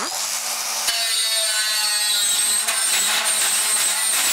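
Cordless angle grinder with a carbide-tipped multi-tip saw blade cutting through thin sheet steel. It is a steady high whine mixed with harsh cutting noise. About a second in, the blade bites and the motor pitch dips briefly, then the cut runs on evenly.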